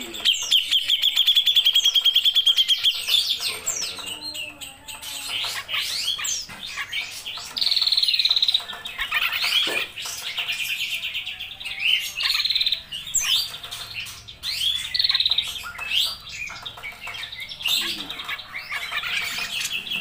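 Grey-cheeked bulbul (cucak jenggot) singing: a varied run of chattering calls broken by fast rattling trills, the longest one near the start and lasting about three seconds, with shorter trills later.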